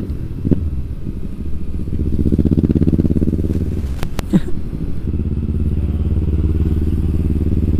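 Kawasaki ER-6n's 650 cc parallel-twin engine running at a steady idle through an aftermarket exhaust. Two or three sharp clicks come about four seconds in.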